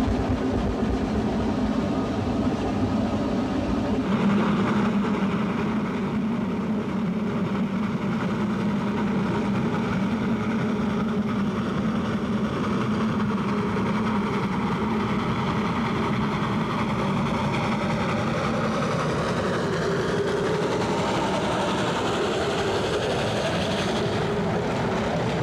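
Steam logging locomotive working hard up a steep grade with a train: a steady, loud running noise that swells about four seconds in. Its sound shifts near the end as the locomotive runs close past.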